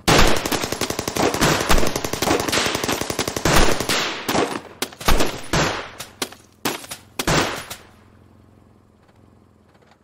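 Sound-effect barrage of gunfire from many guns at once: rapid overlapping shots for about five seconds, then thinning to scattered single shots that stop about eight seconds in. A low steady hum runs underneath and is left alone as the shots die away.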